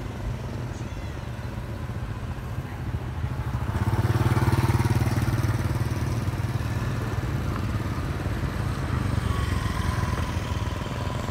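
Street traffic of small motorbikes passing, their engines running by in turn; the loudest pass comes about four seconds in.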